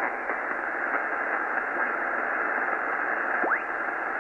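Shortwave band noise hissing from a Yaesu ham transceiver's speaker as it is tuned across the band. About three and a half seconds in, a brief whistle climbs quickly in pitch as a signal is tuned past.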